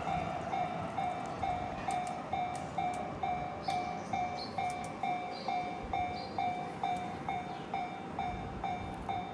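Japanese level-crossing warning bell ringing steadily at about two strikes a second, over the fading rumble of a passing train.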